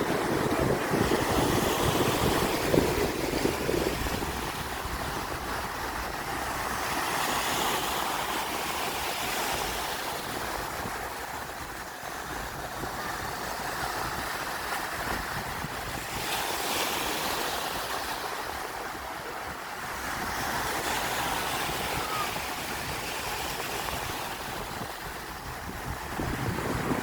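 Sea waves washing onto the shore, the surf swelling and ebbing every few seconds. Wind buffets the microphone, most in the first few seconds.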